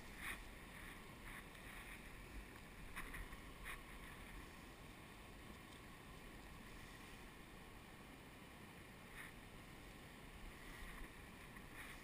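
Faint, steady rush of river water from a small waterfall nearby, with a few brief, soft higher sounds over it.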